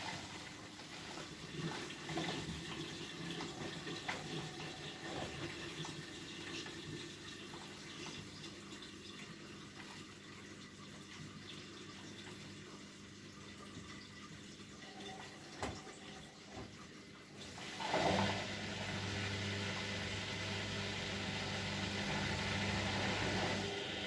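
Bosch Maxx WFL 248Y washing machine taking in water, a steady rushing inflow. About three-quarters of the way through, a steady low hum starts up alongside it.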